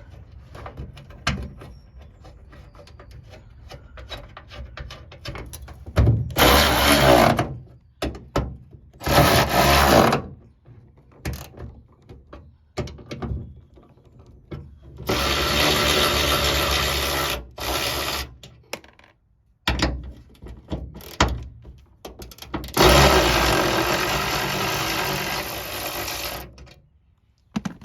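Cordless power ratchet running in four bursts, two short and then two of about three seconds, spinning the 12 mm bolts of a hood-strut bracket; its battery is going dead. Small clicks and rattles of tool handling come between the runs.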